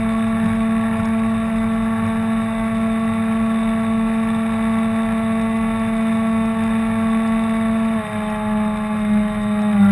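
A radio-controlled model tug boat's drive motor running at steady speed with an even, pitched whine, over water rushing along the hull. About eight seconds in, the pitch drops a step as the boat slows slightly.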